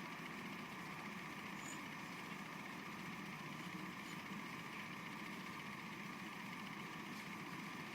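Faint, steady background hum and hiss with no distinct events.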